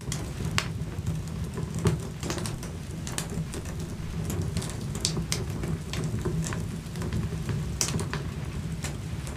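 Wood fire burning in an open fireplace: irregular sharp crackles and pops from the burning logs over a steady low rumble of the flames.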